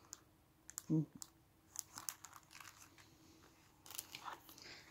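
Clear cellophane craft bags crinkling and rustling in short, scattered crackles as packaged embellishments are handled, with a brief murmur of voice about a second in.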